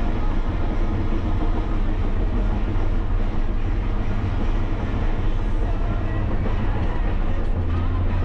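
Caterpillar D7R LGP bulldozer's diesel engine and tracks running steadily under load as the blade pushes snow, heard from inside the cab. The low drone grows a little stronger near the end.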